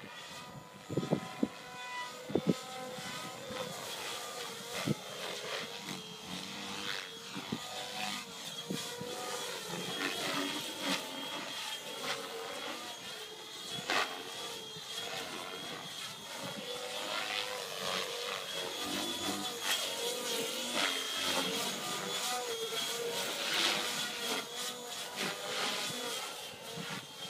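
Radio-controlled 3D aerobatic helicopter flying manoeuvres: a steady rotor and motor whine whose pitch wavers as the blades load and unload. There are a few sharp clicks in the first few seconds.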